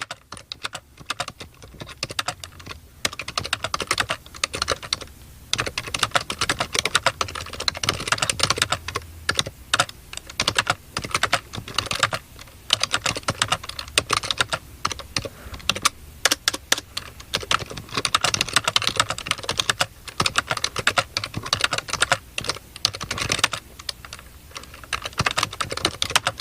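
Rapid keyboard typing: fast runs of key clicks broken by short pauses.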